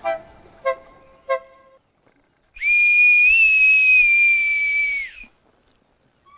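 Boatswain's call blown in one long, high, steady note of about two and a half seconds that rises a little partway through and bends down in pitch as it cuts off. Before it, the last few plucked notes of background music die away.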